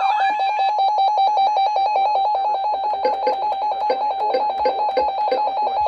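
Electronic emergency alert tone opening a tornado warning: a loud, rapidly pulsing beep at about eight beeps a second, with higher tones alternating above it. About halfway through, a second, slower beep joins at about three a second.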